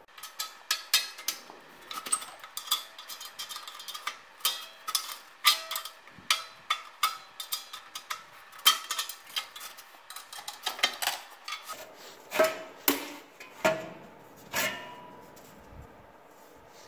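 Steel exhaust springs on a 2002 Ski-Doo MXZ Legend 500F's tuned pipe being pried off with a notched flathead screwdriver. The metal gives irregular sharp clinks and snaps, a few a second, some ringing briefly. They thin out and stop about a second before the end.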